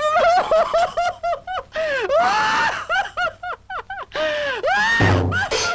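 Cartoon character's loud, rapid cackling laughter: several quick ha-ha's a second, broken twice by longer high-pitched shrieks of laughter, with a short noisy burst about five seconds in.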